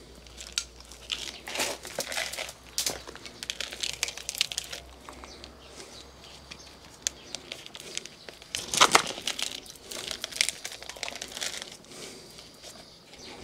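Repotting noises: a plastic plant pot being handled and tipped out, and loose potting soil rustling and crackling as gloved hands press it around a young fig plant. There is an irregular run of rustles, scrapes and small clicks, loudest about nine seconds in.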